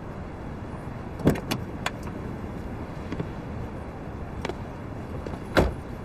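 An old car's engine running low and steady, with a few sharp clicks and knocks about a second in and a louder knock near the end.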